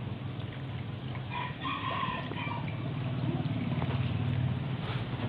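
A rooster crows once in the background about a second in, its call broken into three short pieces, over a steady low hum. After that comes the noise of water being poured into a pot of raw chicken drumsticks.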